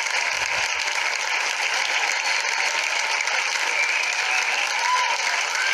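Steady crowd applause sound effect, dense clapping at an even level, with a few faint high calls mixed in.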